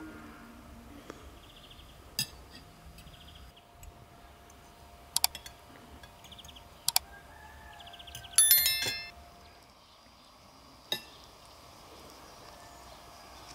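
Forks clinking against plates during a meal: a few sharp, separate clinks, the loudest a short ringing clatter about eight and a half seconds in.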